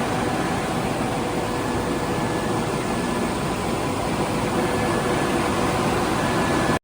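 2009 POLYGLASS LV1500 vertical glass washing machine running: a steady rushing machine noise with a few faint steady hum tones, cutting off abruptly near the end.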